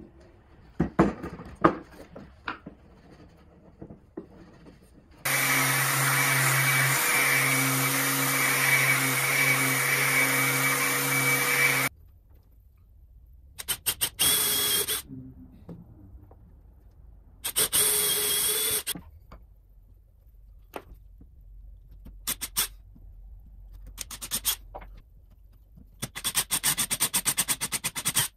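DeWalt XR cordless drill boring holes in walnut panels for screw-in nuts, run in bursts. First comes one long steady run of about seven seconds, then two short runs, then a quick string of rapid pulses near the end. Light handling clicks come before the first run.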